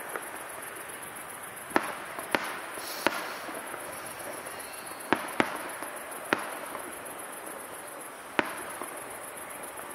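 Fireworks display heard from a distance: aerial shells bursting as sharp bangs, about seven at irregular spacing, over a steady wash of sound.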